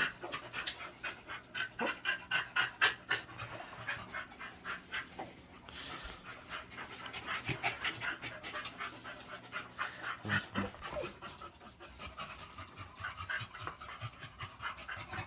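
A dog panting in quick, short breaths that repeat steadily.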